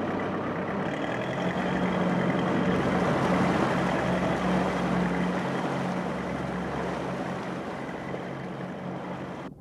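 Police motorboat's engine running at speed, a steady hum over rushing, churning water from the wake. It eases slightly toward the end, then cuts off suddenly.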